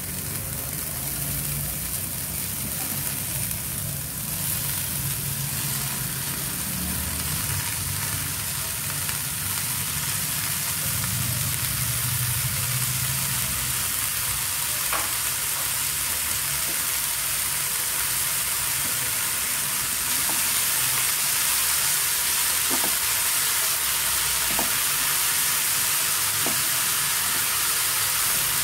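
Chopped spinach sizzling steadily in hot oil and spice masala in a non-stick frying pan, with a low hum underneath. A wooden spatula stirs it, with a few light clicks in the second half.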